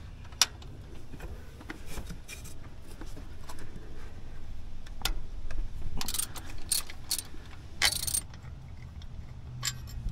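Metal hand tools clicking and clinking against the engine while the bolts of an LS engine's belt tensioner are undone: scattered sharp clicks, with short bursts of metallic rattling about six, seven and eight seconds in.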